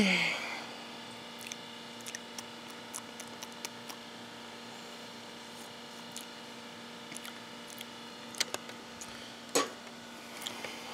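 Mostly quiet: a faint steady hum with scattered small clicks as a person sips tea from a cup, with two sharper clicks near the end.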